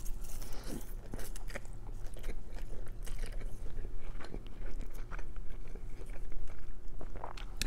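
Close-up chewing of a mouthful of chow mein noodles, with many small, irregular wet clicks from the mouth.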